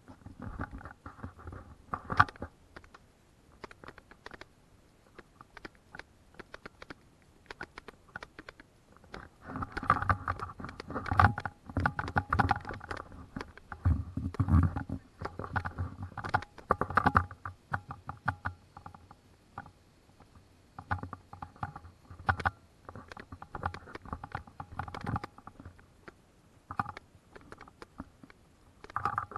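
Footsteps and rustling through undergrowth on a forest trail: irregular crunches, scuffs and knocks, busiest from about a third of the way in to a little past halfway.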